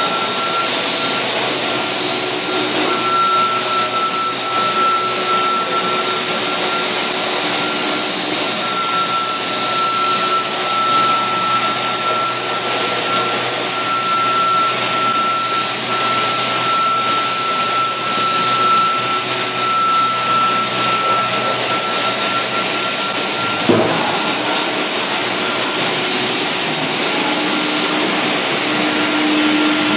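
Puffed corn snack production line running: loud, steady machinery noise with a constant high whine and a steadier mid-pitched tone. A single sharp click about three-quarters of the way through, and a lower hum joins near the end.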